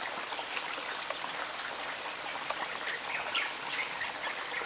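Shallow forest stream trickling over rocks, with scattered short bird chirps and a thin, steady high-pitched tone.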